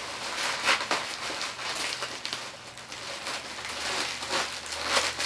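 A cardboard packing box being handled and pushed shut: irregular crinkling, scraping and tapping of cardboard.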